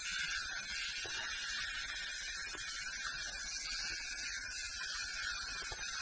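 Steady high-pitched chorus of night insects, an unbroken shrill hiss in two pitch bands that does not change.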